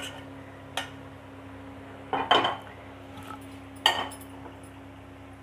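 A metal spoon knocking and scraping against a steel bowl as thick, grainy milk cake mixture is spooned into it. There are separate strikes at the start, about a second in, a longer scraping cluster a little after two seconds, and one more near four seconds, over a steady low hum.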